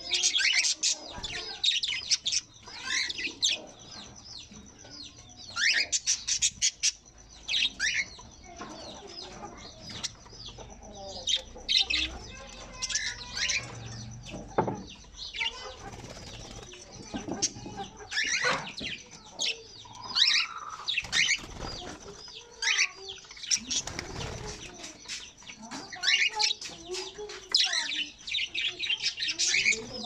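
A mixed group of small pet parrots (cockatiels, lovebirds and budgerigars) calling in clusters of short, sharp, high-pitched chirps, with wings flapping as birds flutter and fly about.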